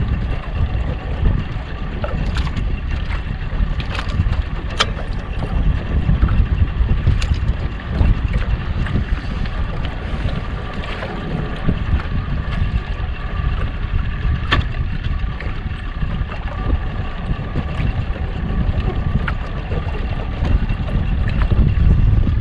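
Wind buffeting the microphone in an open boat: a steady low rumble with a faint even hum beneath it. A few light, sharp clicks come through here and there.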